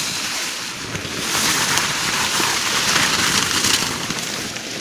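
A tarp rustling as it is handled close by: a loud, uneven rushing noise that swells and dips.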